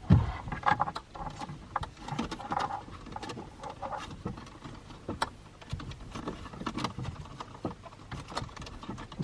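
Wires and plastic being handled inside a car's dashboard radio opening: irregular rustling, light taps and small clicks as the GPS antenna cable is fed in, with a sharper knock right at the start.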